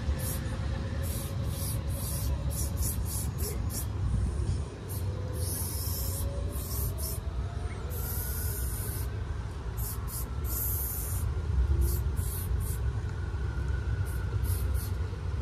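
Aerosol spray-paint can sprayed in many short, irregular bursts of hiss, a few held for up to about a second, over a steady low rumble.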